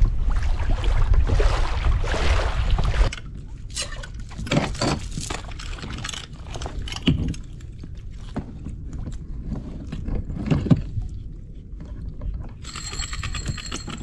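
Wind buffeting the microphone for about three seconds, then cut off suddenly. After that, light clicks and knocks of fishing gear being handled on the kayak, with a short buzzing tone near the end.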